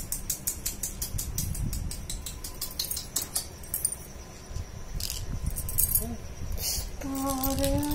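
A small plastic baby rattle being shaken: quick rattling clicks, about five a second, for the first three seconds or so, then a few single shakes. Near the end a voice starts a held, sung tone.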